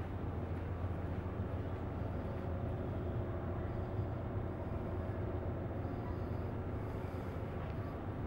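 Steady low engine drone of the ferry Powell River Queen, heard from inside its passenger lounge.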